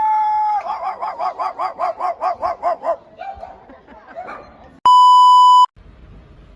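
A dog holds a high whining note, then breaks into a fast run of yelps, about five a second, for a couple of seconds. Later a loud, steady electronic beep sounds for just under a second and cuts off sharply.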